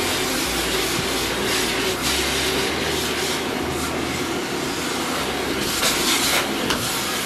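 Vacuum cleaner running steadily, its brush nozzle drawn over velvet upholstery, a continuous rushing suction noise whose hiss brightens briefly about six seconds in.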